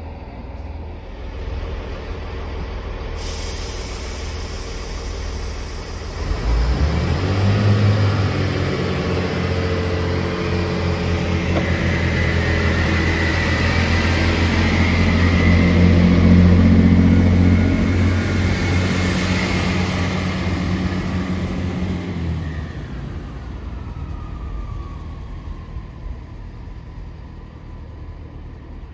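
East Midlands Railway diesel multiple unit departing: its engines open up about six seconds in and run loud and steady as the train pulls away, then fade from about 22 seconds as it draws off.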